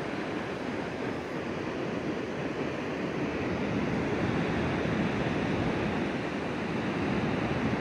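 Steady rushing of river water, an even noise that builds slightly louder over the seconds.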